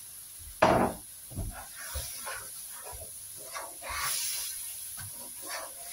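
Water poured into a wok of spice masala frying in hot oil on a high gas flame, hissing and sizzling as it hits the oil, with a sharp burst of noise about half a second in. A wooden spoon scrapes and stirs around the pan, and the hiss swells again near the end.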